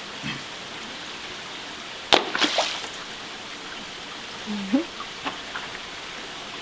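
Running water rushing steadily, with a single sharp knock about two seconds in followed by a brief splashing clatter.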